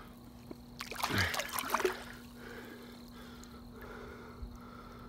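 Blue catfish splashing and thrashing at the water's surface for about a second, starting about a second in, as the released fish kicks away.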